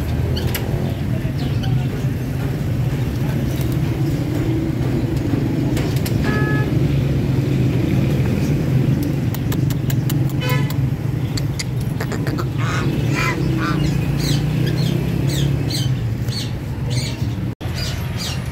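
Steady low rumble of road traffic, with a short steady tone about six seconds in and a run of short squawking calls from caged birds in the second half.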